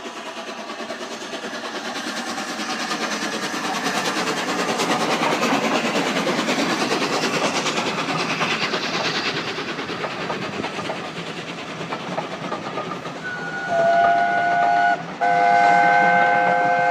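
LNER Peppercorn A1 Pacific steam locomotive Tornado and its train passing, the rumble and rapid rattle swelling and then easing. Near the end the whistle sounds two long blasts, several notes at once.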